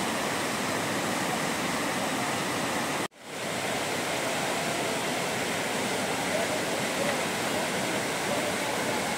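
Whitewater of a fast mountain stream rushing over boulders, a loud steady rush. About three seconds in the sound cuts out for an instant and swells straight back.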